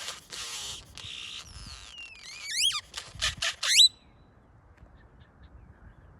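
Great-tailed grackle calling: a run of scratchy, noisy bursts, then a long falling whistle, then several quick, sharp rising whistles mixed with clicks.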